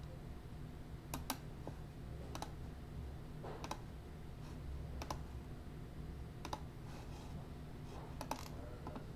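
Faint computer keyboard and mouse clicks, single or in quick pairs every second or two, over a low steady hum.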